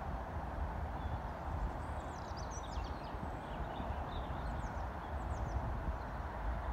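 A horse's hooves thudding on the soft sand of an arena as it is ridden, over a steady low rumble. Birds chirp in the background, with quick falling chirps about two seconds in and again near five seconds.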